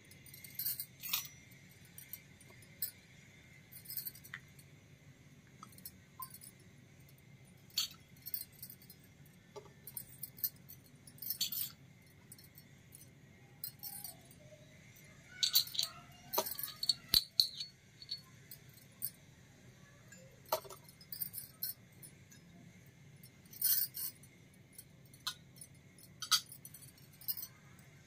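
Miniature stainless steel toy pots, pans and plates clinking and tapping as they are set down on a table, in scattered light clinks with a denser run of ringing clinks a little past the middle.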